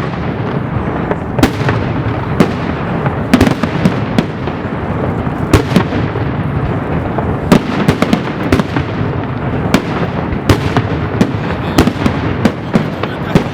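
Fireworks display going off close by: a continuous dense crackle and rumble with sharp loud bangs every second or so.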